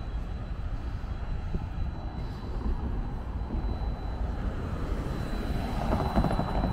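Street traffic: a steady low rumble, with an SUV driving past close by near the end, the loudest moment.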